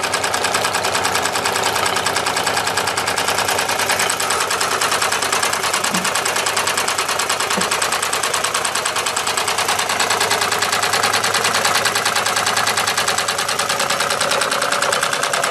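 Gas-fired Wilesco D32 model steam engine running on live steam: a steady, fast, even mechanical clatter.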